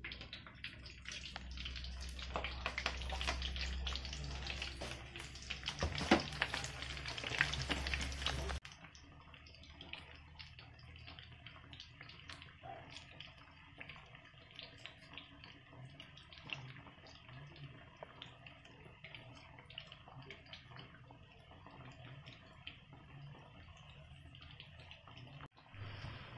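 Batter-coated cauliflower pakoras deep-frying in hot oil in a kadhai: a dense crackling sizzle. For the first eight or so seconds it is louder, with a low hum underneath, then it cuts suddenly to a quieter, even sizzle.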